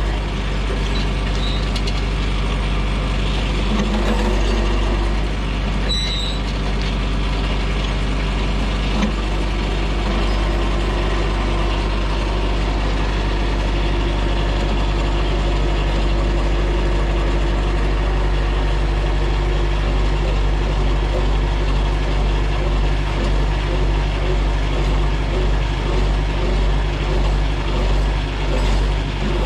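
Engine running steadily at a constant speed, a low drone. In the last several seconds it pulses in loudness about once a second.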